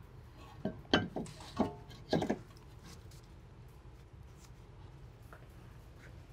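Brake rotor being fitted onto the wheel hub: a quick run of metal clunks and knocks, one with a brief ring, in the first two and a half seconds. After that only a low steady hum.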